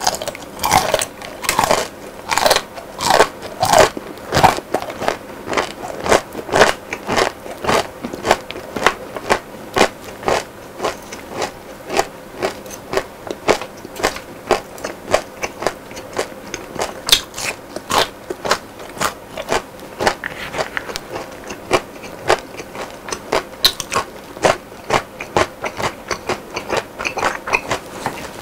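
Close-miked chewing of crunchy deep-fried battered food: a rapid run of crisp crunches, densest and loudest in the first few seconds, then going on steadily.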